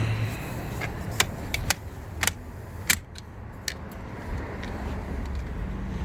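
A rooftop tent being raised by hand: about five sharp clicks and knocks of its frame and fittings over a steady low rumble.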